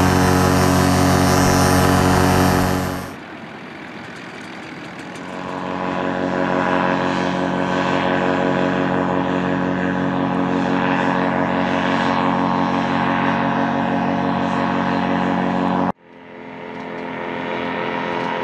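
Paramotor engine and propeller running at a steady pitch, loud and close for the first three seconds. After a cut it returns quieter and builds back up, then stops abruptly at another cut near the end before fading back in.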